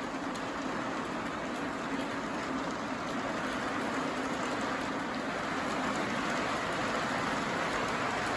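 O-gauge model train rolling along its track: a steady rumble of wheels on rail with motor hum, gradually growing louder.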